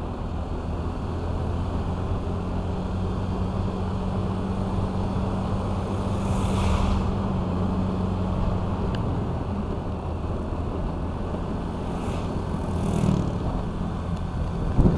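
Honda Vario 125 scooter's single-cylinder engine running steadily at cruising speed, with wind rushing over the microphone. The engine note holds level through the first half and shifts slightly after that.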